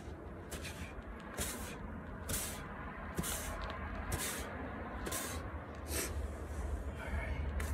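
Fingertips jabbing into a bucket of dry sand and spreading open in it, a short hissing swish of sand about once a second.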